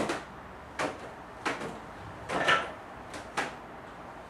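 Homemade PVC drop-turner targets with wooden sticks being released and swinging round, giving about five dull knocks of wood and plastic less than a second apart. The loudest comes about two and a half seconds in.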